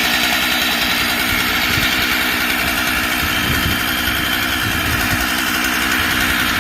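STIHL MS441 71cc two-stroke chainsaw engine running steadily at idle, with no revving. The saw has been rebuilt with a new clutch-side crankcase half.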